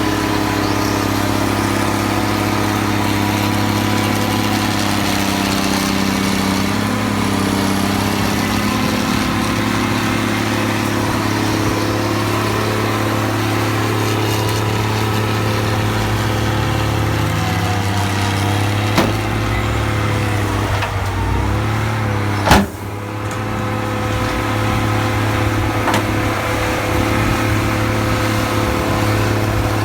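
Fiatallis FD9 crawler bulldozer's diesel engine running steadily, its pitch shifting a little around twenty seconds in. Two sharp metallic knocks come through, the louder one about twenty-two seconds in, after which the sound briefly drops.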